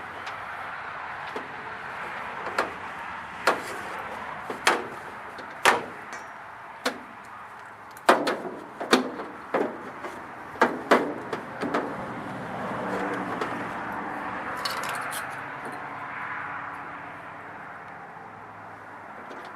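A string of sharp clicks and knocks, about one a second and thickest near the middle, from tools and parts being handled, over a steady background hiss.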